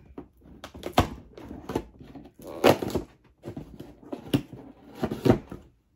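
Cardboard door of a wine advent calendar being pushed in, torn open and handled: a run of irregular knocks, crinkles and rustles, loudest about a second in, near the middle and near the end.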